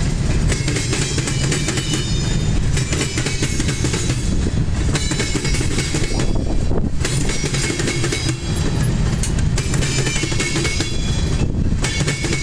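Freight train's tank cars rolling past, a steady low rumble broken by frequent sharp wheel knocks as the trucks bang across the rail crossing diamond.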